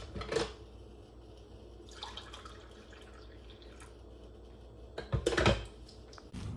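Coffee poured from a glass drip-coffee-maker carafe into a ceramic mug, with a clink as the carafe is lifted out near the start. The loudest sound is a clatter about five seconds in, as the carafe is set back onto the coffee maker's warming plate.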